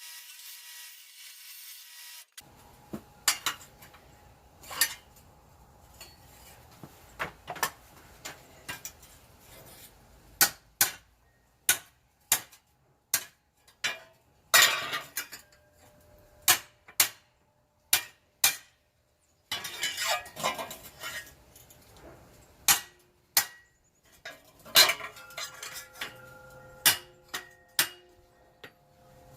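Hammer blows on sheet metal being shaped cold to a curve: irregular runs of sharp metallic strikes, each ringing briefly, beginning a couple of seconds in after a short hiss, with brief pauses between runs.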